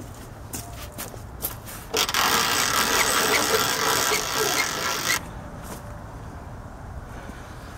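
A few light clicks, then a harsh rustling scrape lasting about three seconds that stops abruptly: handling noise.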